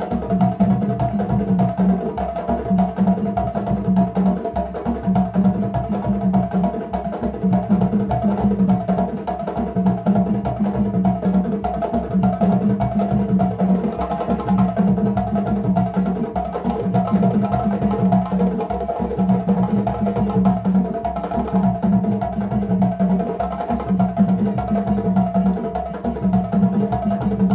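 An ensemble of djembe hand drums played together in a continuous, dense rhythm of hand strokes.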